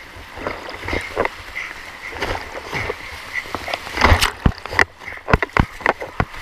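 Whitewater rushing and splashing right at a camera held at the waterline while a swimmer strokes through the rapid, with many sharp irregular splashes and a loud burst of churning about four seconds in.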